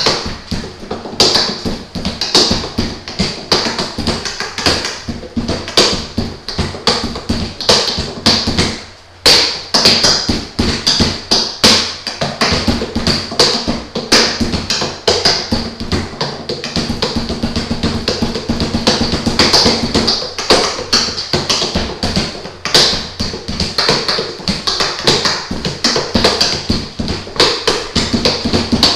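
Freestyle finger and knuckle drumming on the armrests of an armchair: a fast, steady stream of taps and knocks played as a groove. It breaks off briefly about nine seconds in, then picks up again.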